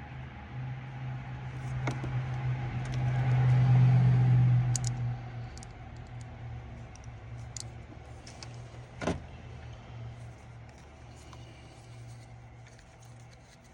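A motor vehicle's engine running with a low hum, growing louder to a peak about four seconds in and then fading away. A single sharp click about nine seconds in.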